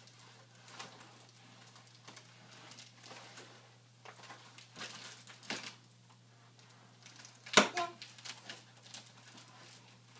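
Small handling noises as a toddler fiddles with a light-up toy and a card on carpet: scattered soft clicks and rustles, with one sharper click about three quarters of the way through.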